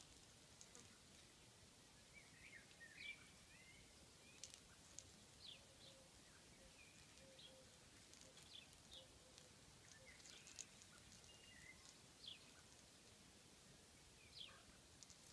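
Near silence with faint, scattered bird chirps and short calls.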